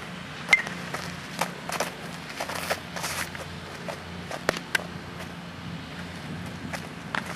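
Infield practice: a sharp crack of a bat hitting a baseball about half a second in, followed by scattered light clicks and scuffs of fielding and footsteps on dirt, over a steady low hum.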